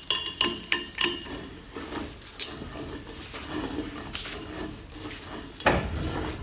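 Wheel-type pipe cutter being worked around a galvanized steel pipe held in a bench vise. There are sharp metallic clicks in the first second, then uneven scraping and rattling as the cutter is swung round the pipe and its wheel scores the steel. A heavier knock comes near the end.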